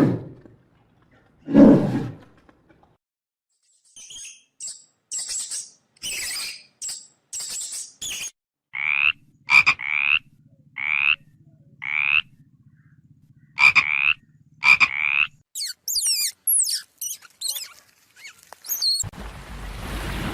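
A sequence of different animal calls: two loud low roars at the start, then short high chirps, then six or so repeated calls evenly spaced over a low hum, then quick high-pitched chirps, and a buzzing near the end.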